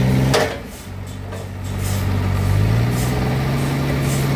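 An engine running steadily, with a sharp short noise about half a second in, a brief drop in level, then its note rising slightly around two and a half seconds in.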